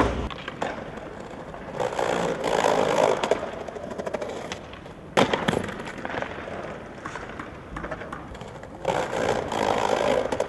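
Skateboard wheels rolling on concrete and paving, with scattered clicks and clacks of the board, and one sharp loud smack about five seconds in as a trick ends in a slam.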